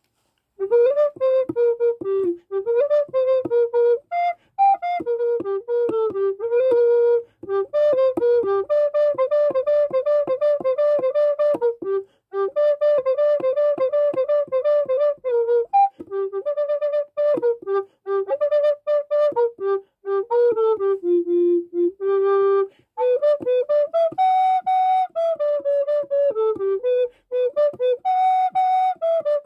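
Alto recorder playing a fast melody solo, mostly in quick runs of short, sharply tongued repeated notes. The playing breaks off briefly every few seconds.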